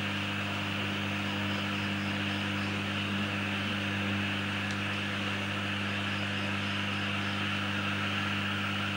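Steady electrical mains hum with several even low tones, under a constant hiss, from the transmitter bench electronics.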